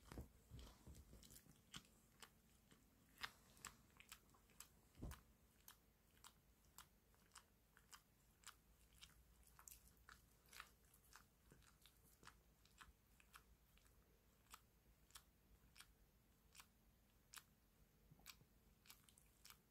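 A mother dog grooming her puppy, licking and nibbling its coat: faint, quick mouth clicks, about two or three a second.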